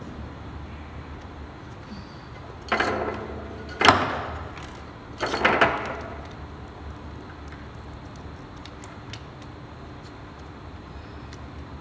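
Metal hand tools clattering on the workbench: three short rattles about a second apart, the middle one loudest, as long-nose pliers are set down and the soldering iron is pulled from its coiled wire stand. A few faint ticks follow near the end.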